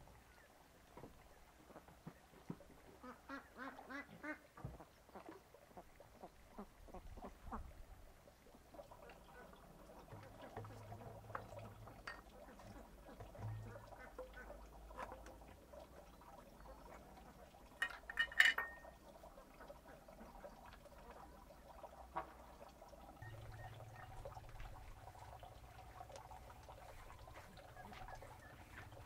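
Faint calls of farmyard birds, short calls repeated on and off, with a louder burst about 18 seconds in. A low hum comes and goes.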